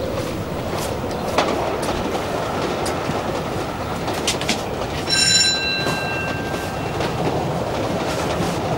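A doorbell rings once about five seconds in, a single chime that fades over a second or two, over steady street rumble with a few scattered clicks and footsteps.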